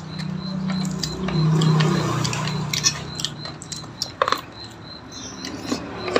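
Eating at a table: small clicks of spoons and fingers on plates and chewing, with one sharper clink a little past four seconds in. A low hum swells and fades in the first half.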